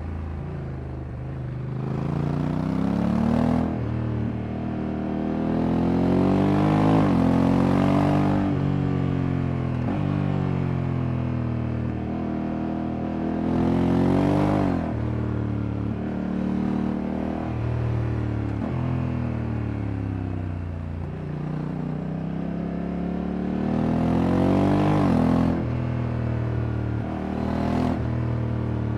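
Honda Africa Twin Adventure Sports 2024 DCT's parallel-twin engine under way. Its pitch climbs steadily and then drops sharply several times as the dual-clutch gearbox shifts, with stretches of falling revs in between.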